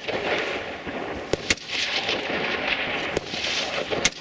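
Rifle shots on a range: about four sharp cracks, two in quick succession about a second and a half in, a fainter one about three seconds in and another near the end, over a steady outdoor background hiss.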